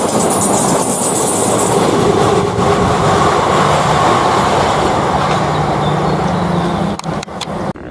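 A train running past close by on the track: a steady, loud rush of wheels on rail. It dips about seven seconds in and cuts off abruptly near the end.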